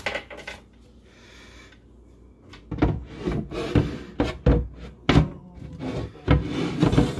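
A loose white cabinet shelf board being worked into place inside a flat-pack kitchen cart, knocking and thudding against the cabinet: one knock at the start, then from about two and a half seconds in a run of uneven wooden thuds and knocks.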